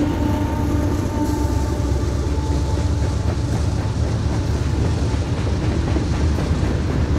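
Freight train passing close by: a steady tone from the trailing diesel locomotive dies away in the first couple of seconds. Then covered hopper cars roll past with a steady wheel rumble and clickety-clack over the rails.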